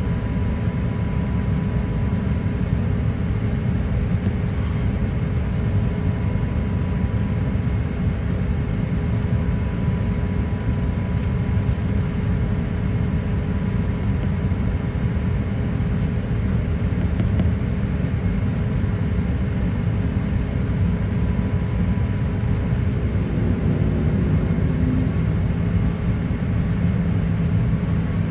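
Steady cabin noise inside a Boeing 787-8 Dreamliner on descent: a low rumble of engines and airflow heard at a window seat, with a few faint steady tones running through it. Near the end a low hum comes up a little stronger.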